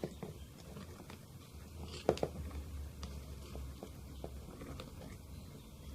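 Slime mixture of glue and fabric paint being stirred in a container: soft scraping and small scattered ticks, with one sharper knock about two seconds in.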